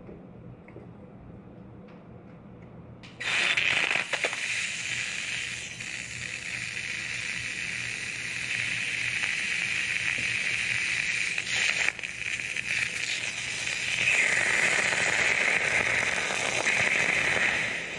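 Block of ice on a red-hot freshly cast metal ingot in its mould, sizzling and crackling as the ice melts and boils off against the hot metal. The hiss starts suddenly about three seconds in, eases a little near twelve seconds and is loudest near the end.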